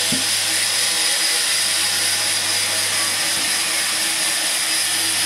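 Large log band saw running steadily: an even, loud hiss from the blade and wheels over a steady low motor hum.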